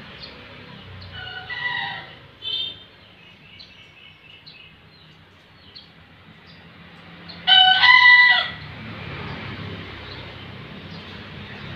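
Bekisar cockerel crowing, a green junglefowl × domestic chicken hybrid. A crow comes about a second and a half in, then a short call a second later, then a louder crow lasting about a second past the halfway point.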